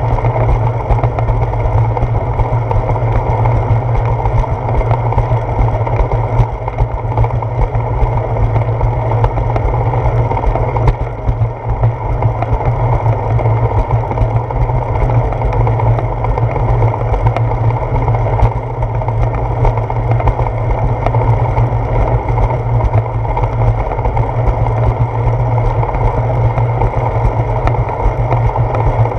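Steady wind rush and buffeting on a handlebar-mounted GoPro Hero 4's microphone as the bicycle rides along, a loud low rumble that dips briefly about a third of the way in.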